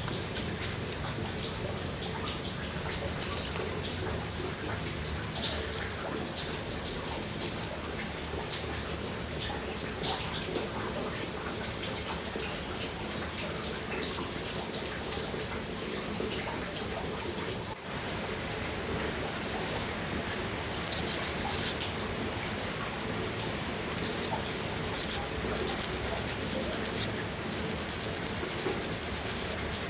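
Water running steadily, as when parts are being washed; from about two-thirds in, several loud bursts of fast, rhythmic rubbing strokes.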